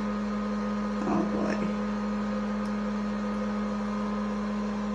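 A steady machine hum: one strong low tone with fainter fixed higher tones above it, unchanging throughout.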